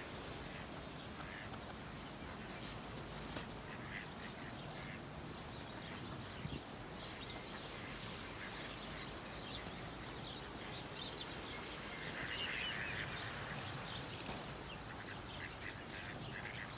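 Mallard ducks quacking and calling on the water, scattered calls over a steady background hiss, with a louder run of calls about twelve seconds in.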